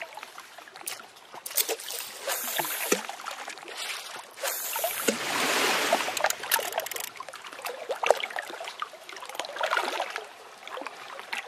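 Water sound effect: splashing and trickling water with scattered small splashes, swelling into a louder rush about five to seven seconds in.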